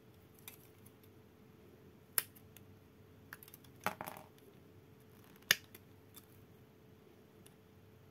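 Plastic-model nippers snipping parts off a Mini 4WD kit's plastic runner: three sharp snaps about two, four and five and a half seconds in, the last the loudest, with fainter clicks between.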